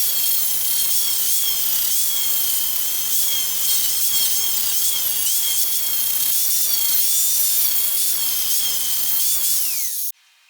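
High-speed power grinder running against car-body sheet metal: a steady high whine over a hiss, the pitch dipping briefly as it bites. About ten seconds in it cuts off and the whine falls away as the tool spins down.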